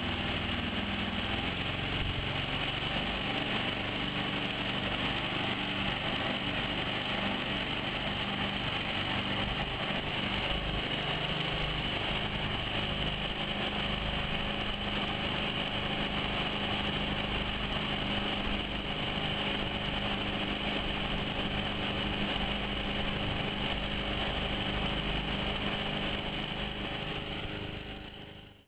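Homemade bawad outboard mud motor engine running at a steady, even speed.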